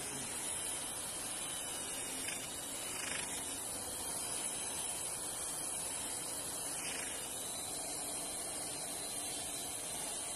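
Angle grinder with a white sanding disc running steadily against a marble moulding: a continuous hiss of abrasive on stone with a faint motor whine.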